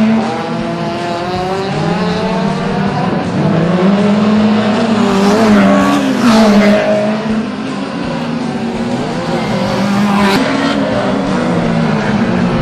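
Small racing hatchbacks' engines revving hard, the pitch repeatedly rising and dropping with gear changes and lifts between the cones, with tyres squealing at times.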